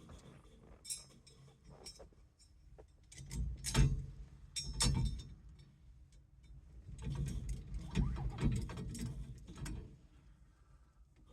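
Small metal parts and hand tools clinking and clattering as they are handled, with irregular knocks and a couple of louder bouts of rattling partway through.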